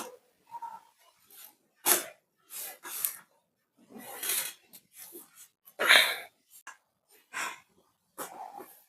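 A person's breathing in short, forceful huffs with pauses between, about seven in all, the loudest about six seconds in.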